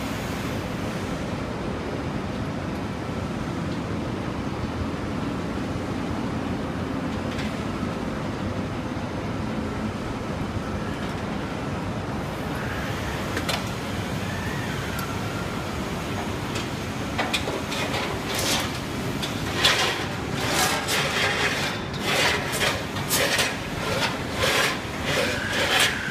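Steady rumbling background noise. About two-thirds of the way in, rubbing or scraping strokes begin, about two a second, irregular and growing louder.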